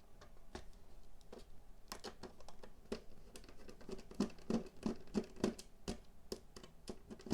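Precision screwdriver working a stubborn screw out of a melted plastic VHS cassette shell: a run of faint, irregular clicks and scratches, thickest in the middle seconds.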